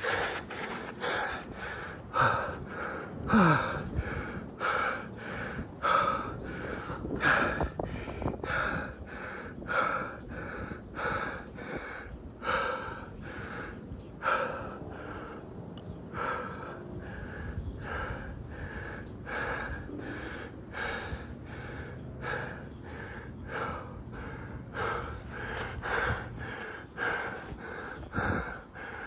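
A person breathing hard and rhythmically while sprinting, about three heavy breaths every two seconds.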